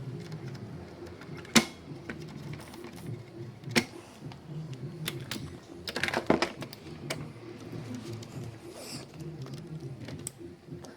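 Scattered sharp clicks and taps of small hand tools on metal parts during an electronics repair, the loudest about a second and a half in and a quick cluster around six seconds. A low steady murmur runs underneath.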